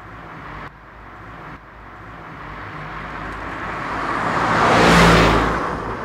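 Engine hum and road noise inside a moving car. A rushing sound swells to its loudest about five seconds in and then fades, as a vehicle passes close by.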